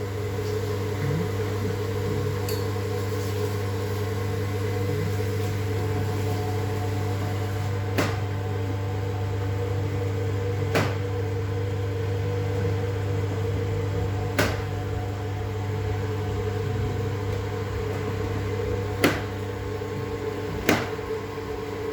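A machine running with a steady electric hum, with five sharp clicks or knocks at irregular intervals of a few seconds.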